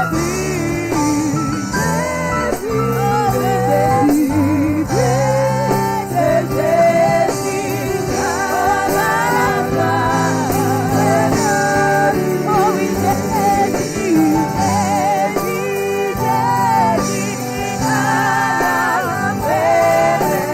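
Gospel worship music: singing over sustained keyboard chords and a steady bass line.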